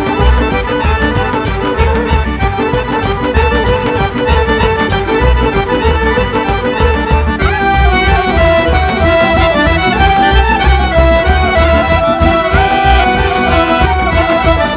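Live Serbian folk dance music from a small orchestra, an accordion leading the melody over a steady low beat. About halfway through, the tune moves up higher.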